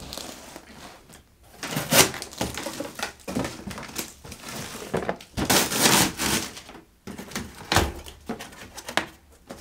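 Cardboard shipping boxes being cut open and handled: a blade slitting packing tape, with cardboard scraping and rustling and irregular knocks as a box is tipped. A heavy knock comes near the end.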